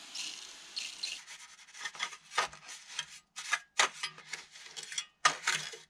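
A hand pump sprayer hissing as it mists the wall, with two short spurts in the first second. Then a trowel scrapes and presses lime render onto the wall in quick, irregular strokes.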